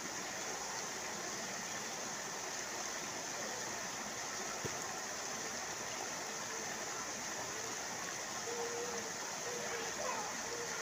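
Steady rush of water pouring from a water-play structure's overhead spout and splashing into the pool.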